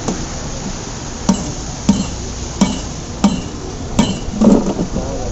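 Six sharp, evenly paced strikes about two-thirds of a second apart, each with a short ring, from a street-food vendor's utensil hitting a hard surface.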